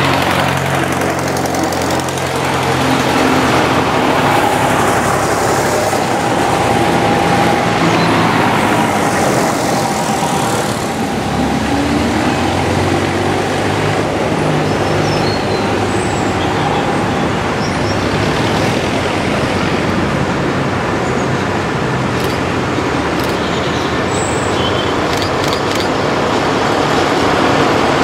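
Vintage tractor engines running as the tractors drive past one after another. The engine note is strongest in the first half as a tractor passes close by, fades about halfway through, then the next tractors draw near toward the end.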